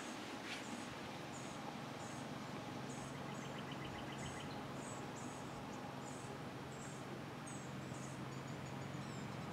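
Outdoor ambience: a steady hiss with a high chirp repeating about twice a second, a brief rapid trill a few seconds in, and a steady low hum underneath.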